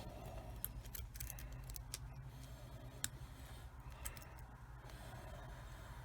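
Faint metallic clicks and scratching of a rake pick working the pins of a cheap 40 mm padlock, with a sharper click about three seconds in, over a low steady hum.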